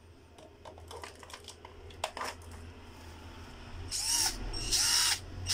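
Xtra Power XPT 484 cordless drill, freshly fitted with a battery, triggered in short bursts near the end. Its motor whines up and back down each time. A few clicks and knocks from handling the drill come first.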